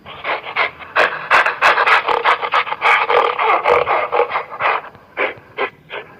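Gorilla calling in a fast run of breathy, noisy calls, about four a second, that thin out into separate calls near the end.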